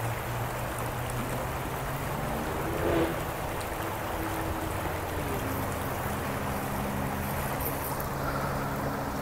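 Steady rush of a fast mountain river flowing over rocks, with a short voice-like sound about three seconds in.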